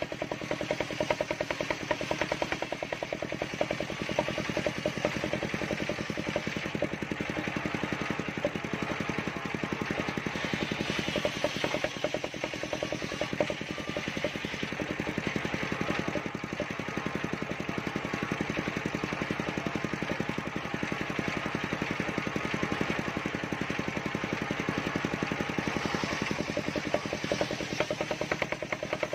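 A large engine-driven circular saw running steadily with a fast, even engine pulse while its blade rips a plank of mindi wood lengthwise.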